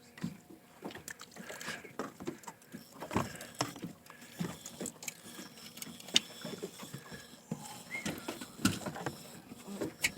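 Irregular knocks, taps and clicks aboard a small fishing boat, with water lapping against the hull.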